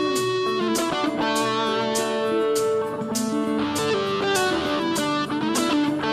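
Instrumental pop-rock music led by electric guitar, with sustained and bending notes over a steady drum beat.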